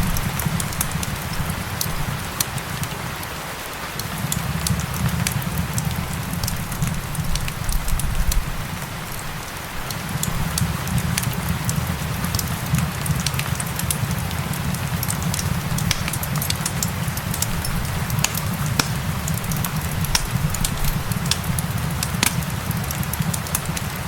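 Wood fire crackling, with many sharp pops and snaps, over steady rain and a low rumble that dips twice.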